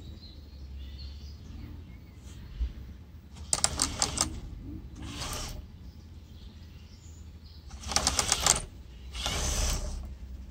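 LEGO Technic RC tracked vehicle driven by two LEGO XL motors, moving in short spurts: twice a rapid plastic clicking and clattering of gears and tracks, each followed about a second later by a smoother whirring run. Birds chirp faintly in the background.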